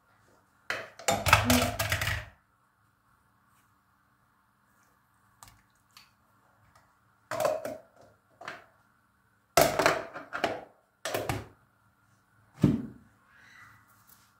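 Cooking pot being handled while lentil soup is salted: utensils and lid knock and clatter against the pot in several short bursts, with a heavier thunk near the end.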